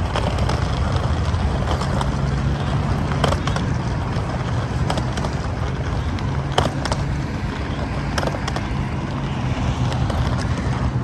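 Steady low hum of a running vehicle engine over a constant background noise, with a few short clicks or knocks scattered through it.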